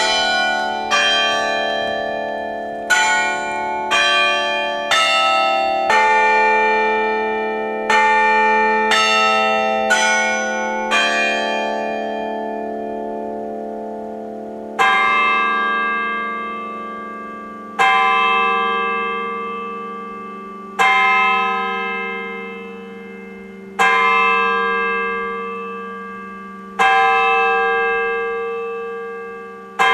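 Church bells ringing: about a dozen strikes on different notes, roughly a second apart, then slowing to one strike every three seconds, each note ringing on and fading slowly.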